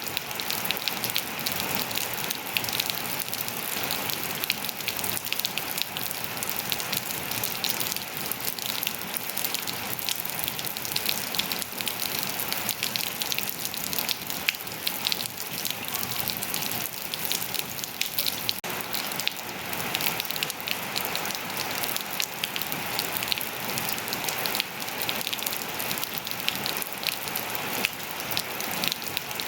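Steady rain falling, a dense even hiss of many drops pattering on surfaces and foliage.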